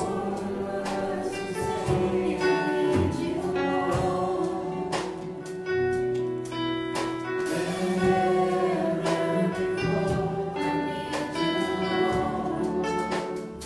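Live church worship band playing and singing a worship song: several voices over acoustic and electric guitars and keyboard, with regular percussive hits.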